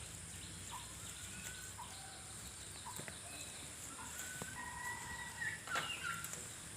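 Birds chirping and whistling in short notes, with one louder animal call about six seconds in, over a steady high-pitched hiss.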